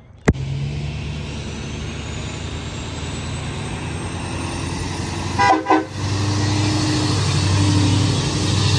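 A vehicle on the road, with a steady low engine drone and road noise. A horn gives a short double honk about five and a half seconds in, after which the low drone grows louder.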